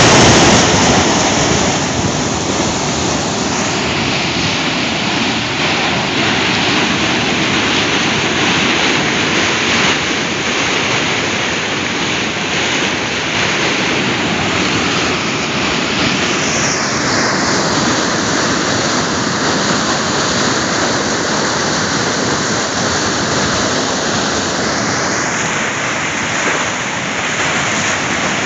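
Swollen, muddy river in flood after a day of rain, rushing and churning into white water along a stone-lined bank: a steady, loud rush of turbulent water.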